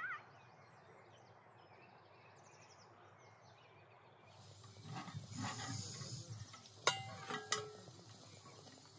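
Two sharp metallic clinks with a brief ring, about half a second apart, as an enamel bowl used as a lid is handled on a metal cooking pot. A faint hiss of steam runs under them. Before that there is only faint outdoor ambience.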